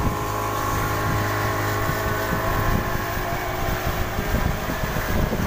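Yamaha 40 hp outboard motor running at a steady cruising speed, driving a fiberglass speedboat, with water rushing along the hull.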